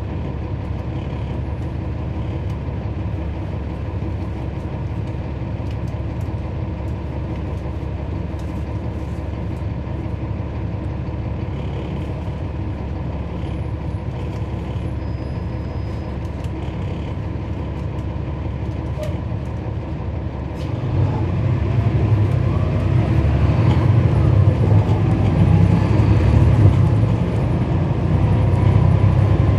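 Cummins ISL9 inline-six diesel of a NABI 40-SFW transit bus heard from on board, running steadily at low revs. About 21 seconds in it gets louder and its pitch rises as the bus accelerates.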